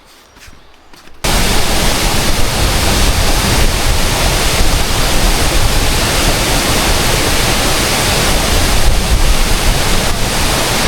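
Loud, steady rushing roar of a tall waterfall close by, cutting in abruptly about a second in after a near-quiet moment.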